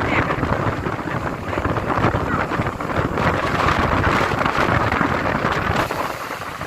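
Strong onshore wind blowing hard into the microphone, loud and gusting, over the noise of rough, heavy surf.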